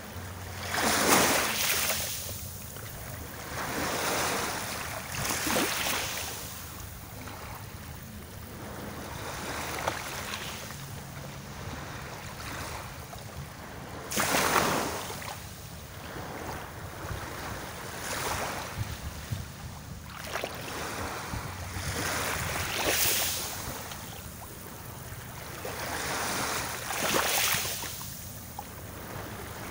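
Small sea waves washing onto the shore, each breaking in a brief rush of surf every few seconds at uneven intervals, over a steady wash of water.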